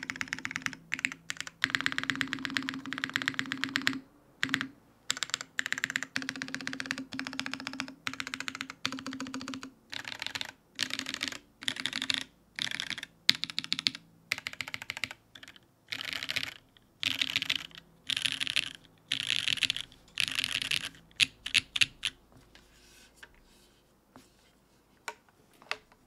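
Custom mechanical keyboard (yoot Elite TKL with lubed Bolsa Corsa tactile switches on a full aluminium plate, GMK keycaps) being typed on: fast continuous runs of keystrokes at first, then separate bursts of presses about a second apart. The typing thins to a few single keystrokes in the last few seconds.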